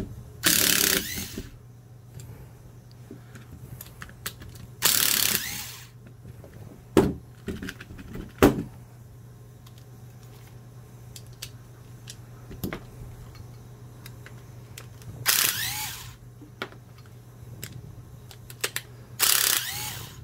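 Makita cordless screwdriver running in four short bursts of about a second each, backing screws out of a plastic drill housing. A few sharp clicks fall between the runs, over a low steady hum.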